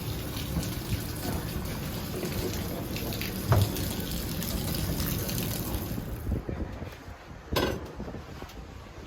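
Rushing, splashing water, a steady hiss that fades about six seconds in, followed by a single sharp knock.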